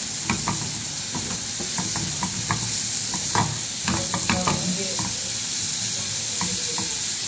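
Julienned carrots sizzling in oil in a frying pan, stirred and tossed with a spatula that scrapes and clicks irregularly against the pan.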